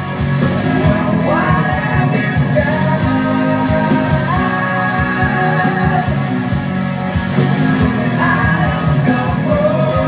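Overdriven electric guitar playing a heavy rock riff through a Mooer Brown Sound preamp pedal, over a backing track with drums and a sung vocal line.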